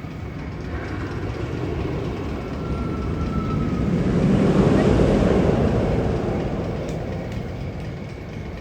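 Magnum XL 200 roller coaster train rumbling along its track, swelling to a peak about halfway through and then fading away.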